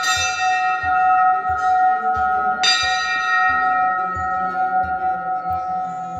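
A temple bell struck twice, about two and a half seconds apart, each strike ringing on in a long, slowly fading tone. A soft, regular low beat of background music runs underneath.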